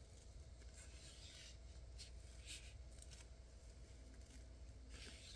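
Near silence, with a few faint, brief rustles of a roll of PET sticker tape being handled and unrolled.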